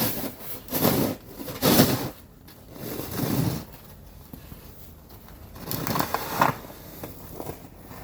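Snow being scraped and crunched, in a run of short strokes about a second apart, a pause, then two more strokes about six seconds in.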